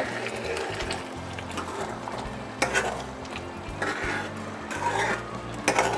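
A metal ladle stirs simmering sambar in a pan, sloshing through the thin gravy with a few clicks of the ladle against the pan's side.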